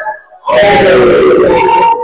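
Loud, echoing shouting voices in a gymnasium. After a short lull at the start, the shouting holds for about a second and a half and breaks off just before the end.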